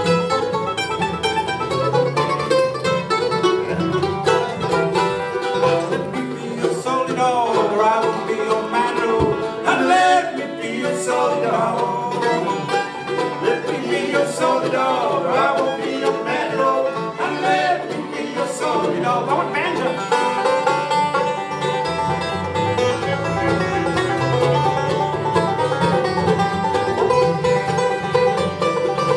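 Acoustic bluegrass band playing at a steady lively tempo: five-string banjo rolls, flat-picked acoustic guitar, mandolin and fiddle together.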